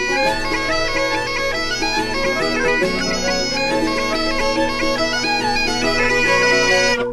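Intro theme music: a fast, ornamented melody over steady held drone notes, like bagpipes, cutting off abruptly near the end.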